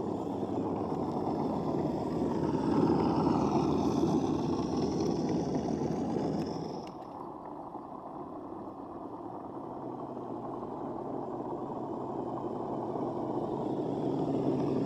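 Motor and gears of a 1/6-scale RC Willys Jeep crawler running as it drives over dirt, the whine rising and falling in pitch with the throttle for the first several seconds. After an abrupt change it runs steadier and quieter, growing louder near the end as the truck comes close.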